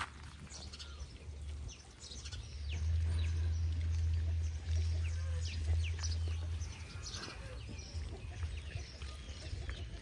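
A group of piglets feeding on the ground, grunting and snuffling, with short bird chirps throughout. A low rumble rises for several seconds in the middle.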